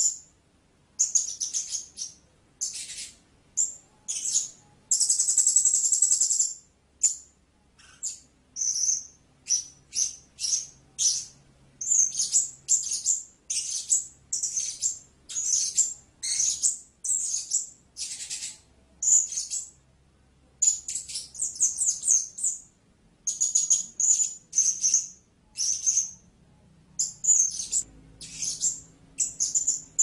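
Blue-crowned hanging parrot calling: a long run of thin, very high-pitched chirps, the short notes coming in quick clusters of several a second with brief pauses between them.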